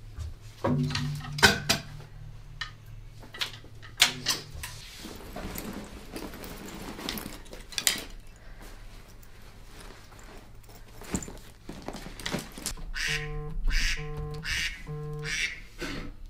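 Clothes and a bag rustling, with scattered knocks and clatters of things being handled. Near the end a phone rings three times in short, buzzy, evenly spaced rings about a second apart.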